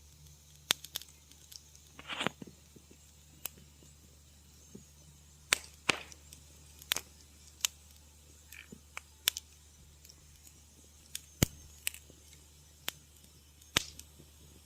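Wood fire crackling in a fireplace: irregular sharp pops and snaps, some loud and some faint, over a faint steady low hum.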